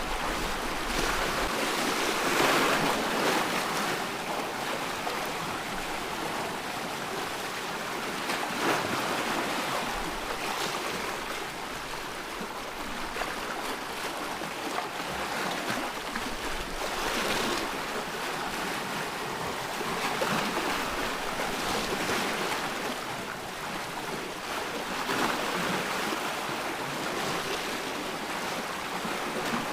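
Ocean waves breaking and washing ashore, a steady hiss of surf that swells every few seconds.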